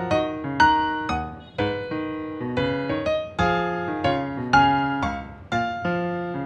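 Background piano music: a gentle melody of struck notes and chords, each note ringing and fading.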